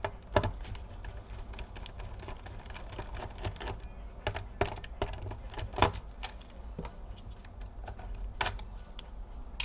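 Irregular small clicks and taps of a screwdriver working screws out of a laptop's plastic bottom case.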